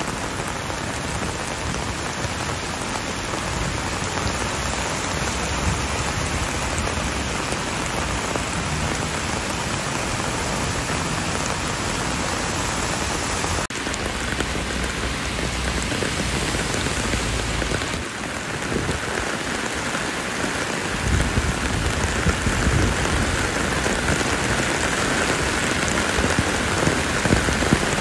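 Heavy rain pouring down steadily as an even hiss. There is a brief dip about halfway through, where the sound changes.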